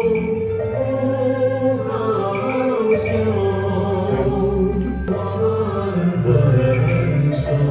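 Chanted singing with music: voices holding long, slowly bending lines. There is a single sharp knock about five seconds in.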